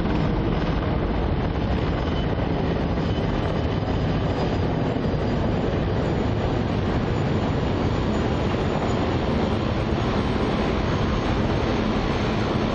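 Several helicopters flying past in formation, a steady drone of rotors and turbine engines.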